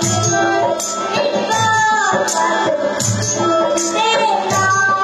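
A child singing a song through a loudspeaker system over loud music, with a steady percussion beat of roughly one stroke every three quarters of a second.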